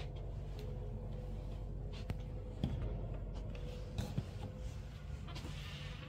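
Steady low hum with a few soft knocks of footsteps and camera handling, about two seconds in and again about four seconds in.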